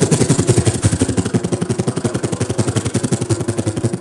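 A person's vocal impression of a helicopter into a microphone: a rapid, even chopping pulse, loud and low, imitating the rotor blades.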